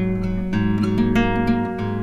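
Background music of strummed acoustic guitar, with chords changing every half second or so.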